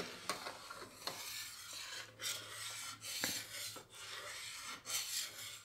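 A spatula scraping around a stainless steel pan of boiling milk, in rasping strokes about once a second: the milk is being stirred without pause as it reduces to khoya, so it doesn't stick or boil over.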